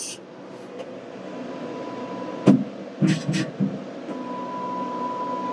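Aeon Mira 5S laser engraver running its autofocus cycle: a motor whines steadily in two stretches over a steady machine hum, with a sharp click about two and a half seconds in and a few softer knocks just after.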